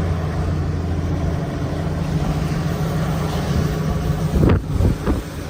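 Intense wind rushing and buffeting against a vehicle and the microphone, over a steady low vehicle drone, with a couple of heavier gust thumps about four and a half and five seconds in.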